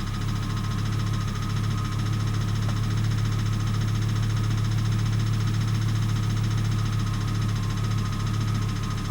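1998 Volvo S70 T5's turbocharged inline five-cylinder engine idling steadily with a fast, even ticking from the engine, which turned out to be rod knock.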